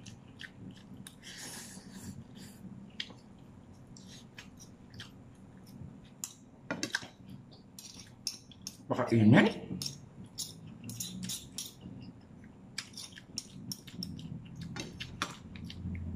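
Metal spoon and fork clinking and scraping against ceramic plates and a bowl while scooping food, in scattered sharp clinks.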